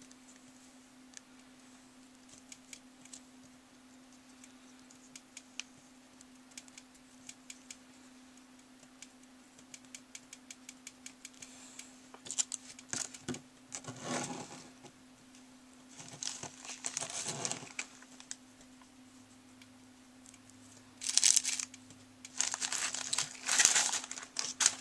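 Fingers handling the pieces of a DIY candy kit: scattered small clicks and taps, then bursts of plastic crinkling from about halfway, loudest near the end. A steady low hum runs underneath.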